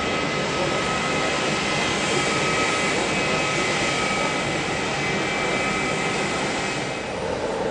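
Jet airliner engines running steadily: a dense rush of noise with a few steady high whining tones.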